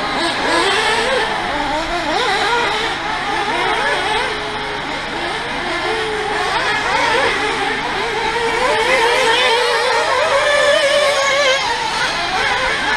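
Several radio-controlled off-road racing cars running on a dirt track, their motors whining in overlapping pitches that rise and fall with the throttle.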